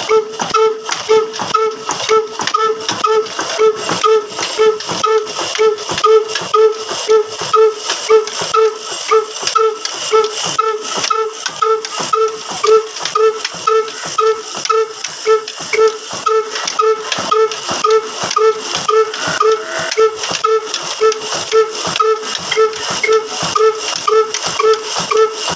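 Ruston Hornsby 'kala engine', a single-cylinder horizontal stationary diesel, running steadily at slow speed with an even, pitched exhaust beat about twice a second.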